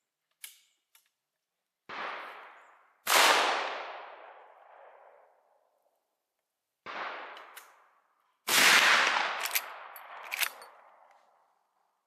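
Two rifle shots about five seconds apart from a replica first-model Winchester 1894 lever-action in .38-55 firing black powder cartridges, each a sudden loud bang with a long fading echo. Each shot is preceded about a second and a half earlier by a quieter bang. Sharp clicks come near the start and again after the second shot.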